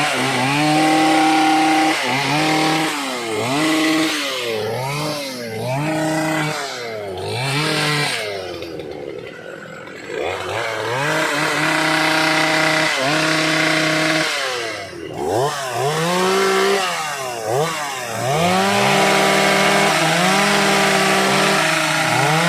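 Two-stroke gasoline chainsaw revved up and down again and again, with longer stretches held at high revs as it cuts dry, hard teak.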